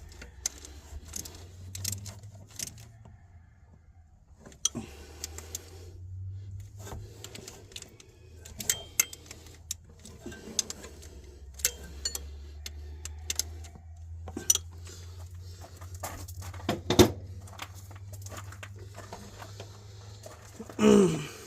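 Metal tools and parts clinking and clicking in scattered, irregular strokes during work on an engine, over a low steady hum. A louder brief sound with a falling pitch comes near the end.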